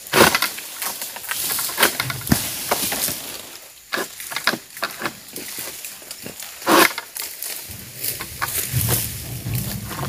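Sharp knocks and scraping rustles as a long-pole harvesting sickle hacks at the fronds and bunch stalk in an oil palm's crown, with the fronds rustling. A low rumble joins about three-quarters of the way through.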